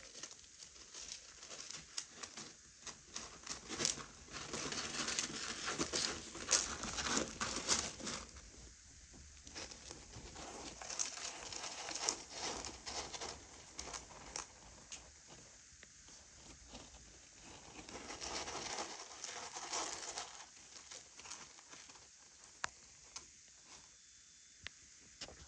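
Kitten scratching and raking pellet cat litter in a plastic litter box: gritty rustling and clicking of pellets in several bursts, quieter near the end.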